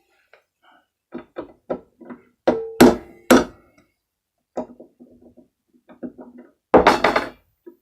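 Hammer striking a DSC International hand impact driver to break loose a stubborn screw: three sharp blows close together about three seconds in and one heavy blow near the end, with lighter knocks and clicks in between.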